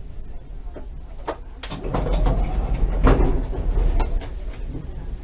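Konstal 105Na tram running: a low rumble that swells about two seconds in and eases off near the end, with a run of sharp clicks and knocks.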